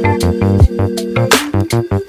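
Background music with a steady beat and sharp drum hits.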